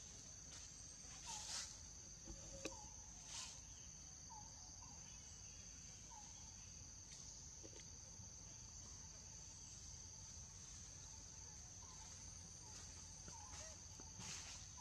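Faint, steady high-pitched drone of insects in the surrounding vegetation, with a few soft short chirps and a couple of brief rustles in the first few seconds.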